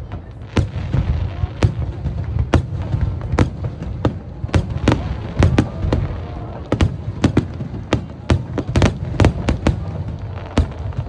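Aerial fireworks shells bursting in quick, irregular succession: dozens of sharp bangs over a continuous low rumble of overlapping explosions.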